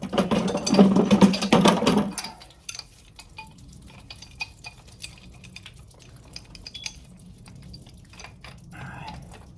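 Metal wrenches clinking and scraping on a brass ball valve and its fittings. A louder clattering bout in the first two seconds gives way to scattered lighter clicks.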